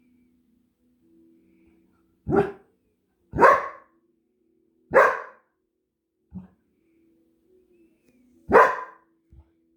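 A dog barking: four loud single barks spaced a second or more apart, with one short, softer bark between them.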